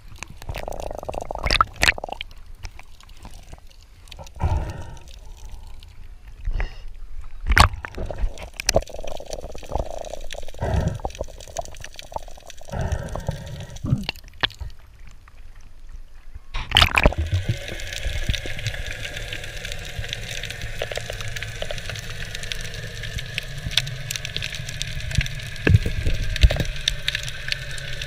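Sea water sloshing and gurgling around an action camera at the surface, with irregular knocks and splashes. About two-thirds of the way through the camera goes under, and a steady underwater hiss and hum takes over.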